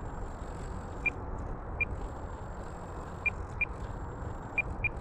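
Steady wind rumble on the microphone, with several short high beeps of the same pitch at uneven intervals.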